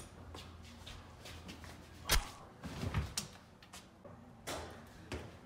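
Door knocks and bumps: one sharp bang about two seconds in, the loudest thing here, then a few quieter knocks.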